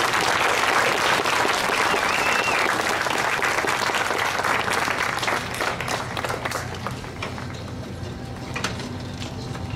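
Audience applauding after a choir song; the clapping dies away about six or seven seconds in, leaving a few scattered claps.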